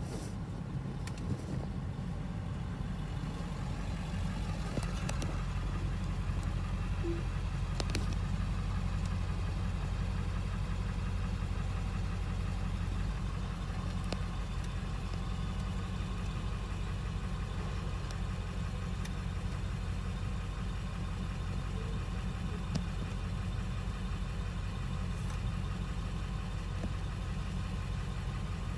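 A car engine running at low revs, heard from inside the cabin as a steady low hum, with a few faint clicks.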